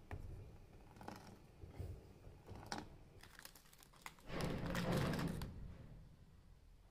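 Plastic biscuit wrapper crinkling as it is handled, loudest for about a second a little past the middle, with a few light clicks and rustles before it.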